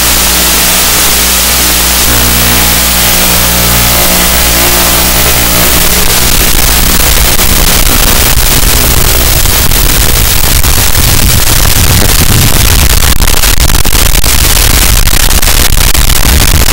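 Mini FPV quadcopter's motors and propellers picked up by its onboard camera microphone: a loud, hissing, engine-like drone. It holds steady tones for the first five or six seconds, then turns rougher and louder.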